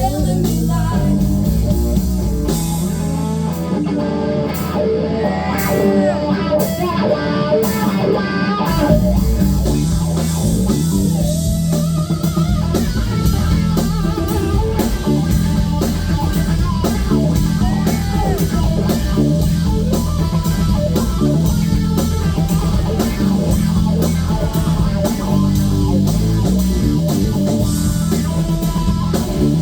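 Live blues-rock band playing an instrumental passage: lead electric guitar with bent notes over bass and drums. For about six seconds a few seconds in, the drums and bass drop away and leave the guitar nearly alone, then the full band comes back in.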